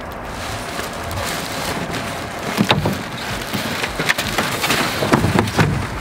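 A cardboard shipping box being pulled up off a compact refrigerator: cardboard and foam packing scrape and crackle, with plastic wrap rustling. A run of sharp cracks and knocks starts about two and a half seconds in.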